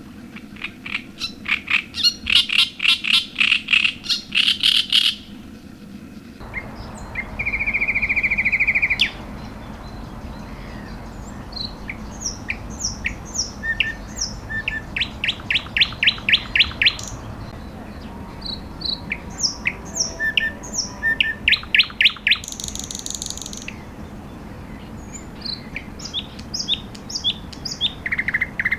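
Several wild birds singing and calling: quick runs of repeated chirping notes, a short buzzy trill and scattered high whistled notes. Underneath is a steady low background noise that gets louder about six seconds in.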